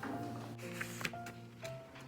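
Background music with a melody of sustained notes, and a few faint taps over it.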